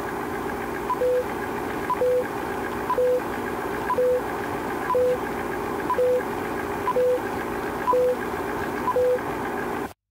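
Old-film countdown leader sound effect: a short beep once a second, nine in all, over a steady whirring hum with crackle, cutting off suddenly near the end.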